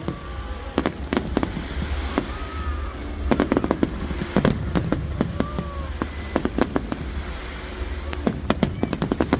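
Fireworks going off: irregular clusters of sharp bangs and crackles over a continuous low rumble, with a few faint whistling glides between them.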